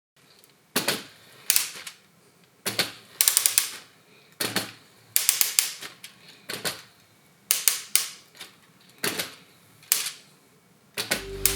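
LEGO Technic 42110 Land Rover Defender gearbox cracking: bursts of sharp clicking rattles about every second or two, as gears skip under load. This is the gearbox fault in higher gears that stops the model's fake engine from running. Music starts near the end.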